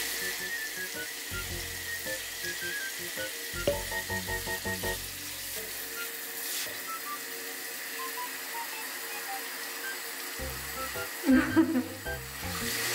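Handheld shower head spraying water onto a tiled floor and bare feet: a steady hiss, with light plucked background music over it and a short louder sound near the end.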